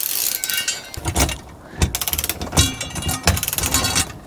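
Socket ratchet clicking quickly as M10 bolts are turned to fix an under-floor LPG tank bracket. From about a second in, the clicking is broken by irregular metallic knocks and clunks.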